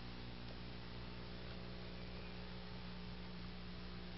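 Steady electrical mains hum over a low hiss, with no other sound standing out.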